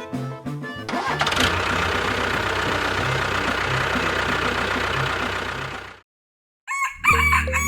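An engine starts about a second in and runs steadily with a low rumble for about five seconds, then cuts off abruptly.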